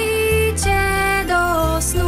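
Instrumental children's song music: a melody of held notes changing about every half second over a steady bass line.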